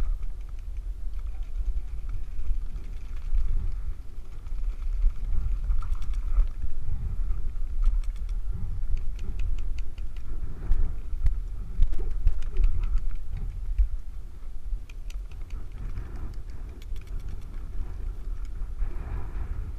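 Low rumble of wind buffeting an action-camera microphone as the player moves, with scattered runs of faint, sharp pops in quick succession.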